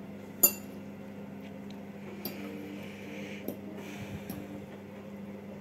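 Metal fork stirring pasta in a ceramic bowl: one sharp clink about half a second in, then a few fainter clinks and soft scraping. A steady low hum runs underneath.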